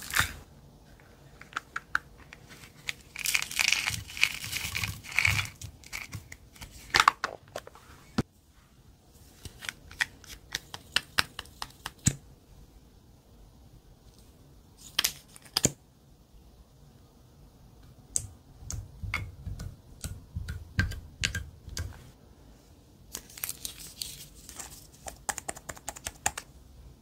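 Close handling sounds of makeup and craft items over glass dishes of clear slime: scattered sharp clicks and taps of caps, bottles and tubes, with two stretches of rustling a few seconds in and near the end.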